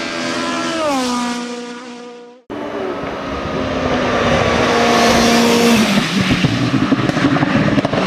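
Race car engines on a hill-climb course. First an open sports prototype's engine falls in pitch and fades as it runs through a bend. Then, after a cut, a second car's engine approaches on a steady high note, drops in pitch as it passes, and turns rough and crackly as it goes away.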